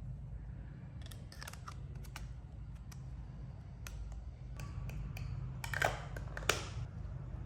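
Small objects being handled during an unboxing: scattered light clicks and short rustles, with two sharper clicks near the end, over a steady low hum.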